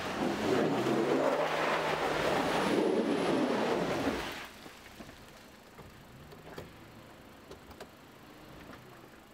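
Toyota 4x4's engine working under load as the truck crawls over a rough trail: a loud rushing noise for about four seconds that drops off suddenly, leaving the engine running quietly with small scattered knocks and creaks.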